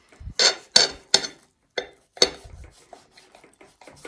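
Kitchen clatter: dishes and cutlery knocking and clinking, with some scraping, in a handful of sharp irregular strikes, the loudest in the first two and a half seconds.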